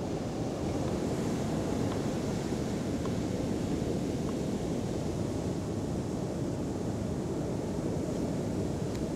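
Steady wind and sea surf on a beach, with wind buffeting the microphone. A few faint light taps can be heard.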